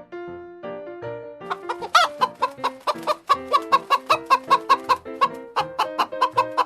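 Chickens clucking in quick repeated notes over background piano music, with one louder squawk about two seconds in.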